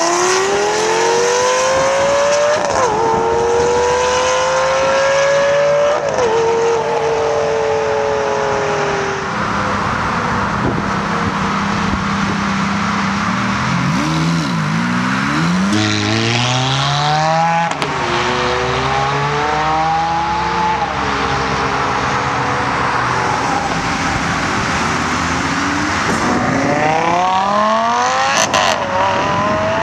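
Exotic sports cars accelerating hard away one after another: a Lamborghini Gallardo's V10 rising in pitch with quick upshifts, then a Ferrari V8 revving and shifting up, and another Lamborghini pulling away with a climbing note and an upshift near the end.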